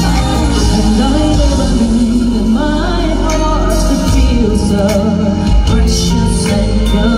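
Live R&B band music through a concert PA: a woman sings the lead into a hand-held mic over keyboard, bass and backing singers.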